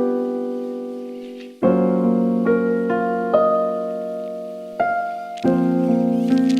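Background music: slow piano notes and chords, each ringing out and fading before the next is struck.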